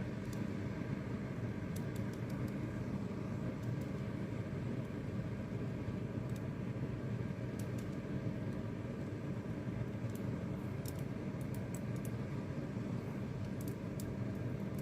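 Steady mechanical hum of a small motor, with a few faint ticks scattered through it.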